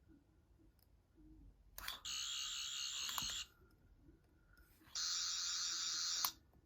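Character Options toy Third Doctor sonic screwdriver playing its electronic warbling sound effect twice, each about a second and a half long, the first about two seconds in and the second about five seconds in, with a click of the button at the edges.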